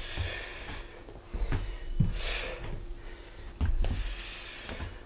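A person breathing hard, with an exhale about every two seconds, and dull thuds of bare feet landing on a wooden floor during step-through lunges.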